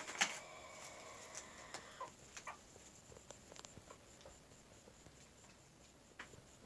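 Chickens in a nest box: a short loud squawk right at the start, then a few short soft clucks about two seconds in, with scattered faint clicks.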